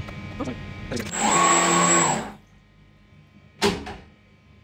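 Twin electric propeller motors of a small model boat running under throttle for about a second, with a high whine over the churning of bathwater, then cutting out.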